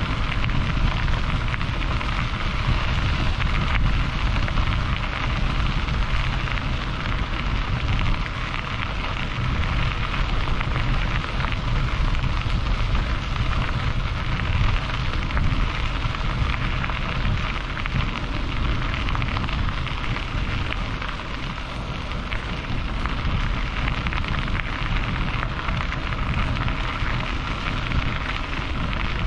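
Steady rushing wind buffeting the microphone while riding along, with a strong low rumble underneath and no distinct events.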